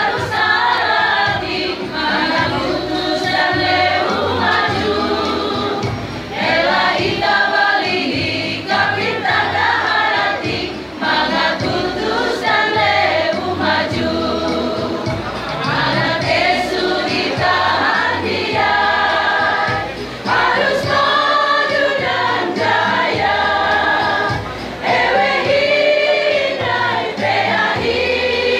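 Mixed choir of women and men singing together in long phrases with brief pauses between them.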